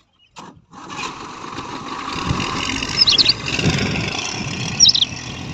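JCB 3DX backhoe loader's diesel engine running steadily while it digs, starting about a second in, with a couple of low thuds. Birds chirp briefly twice, about three and five seconds in.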